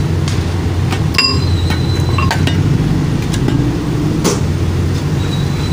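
Steady rumble of passing road traffic, with scattered knocks and scrapes of steel shovels digging into gravel and rubble and a ringing metal clink about a second in.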